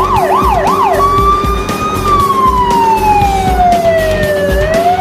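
Fire engine siren, with a quick yelp at about three cycles a second for the first second, then switching to a slow wail that falls for a few seconds and rises again near the end.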